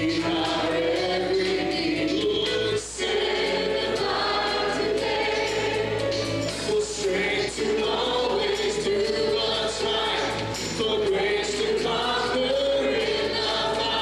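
Church choir singing a gospel song with live band accompaniment, soloists singing into microphones.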